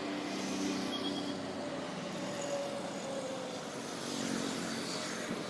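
Highway traffic noise: engines of nearby vehicles running, with steady road and tyre noise.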